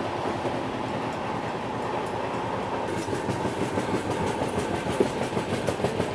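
Passenger train running along the line, with steady wheel-and-rail noise and fine clicks of the wheels over the track. About three seconds in, the running noise gets louder and brighter, with more hiss and clatter.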